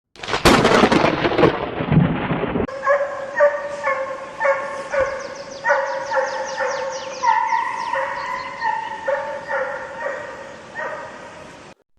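A hunting scent hound baying on a fox's trail: short ringing calls about two a second, with one longer drawn-out call midway. For the first two or three seconds a loud rushing noise covers it.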